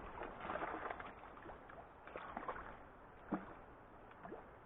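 Faint river water sloshing and splashing, with scattered small clicks and knocks.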